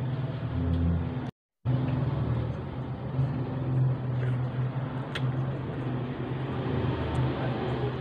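A steady low hum and rumble of background noise, cut out completely for a moment just after a second in. A few faint clicks of a soft burger being bitten and chewed sit over it.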